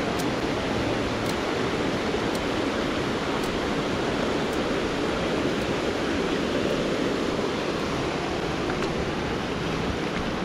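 Steady rush of a flowing river, with faint high ticks about once a second through the first part.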